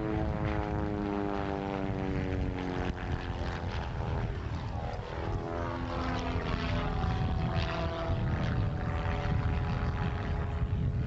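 Piston engine and propeller of a small aerobatic plane, falling in pitch as it passes low by, then droning with shifting pitch as it pulls up into a vertical climb. A low rumble runs underneath.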